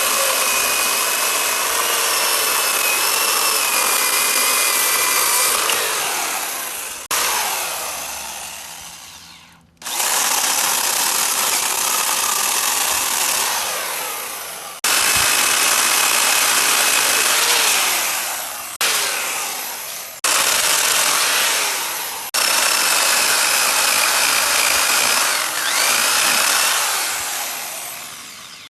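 Corded Ryobi electric chainsaw sawing through wood in repeated bursts: each time the motor runs at a steady high whine, then winds down with a falling pitch when the trigger is released, before starting up again about half a dozen times.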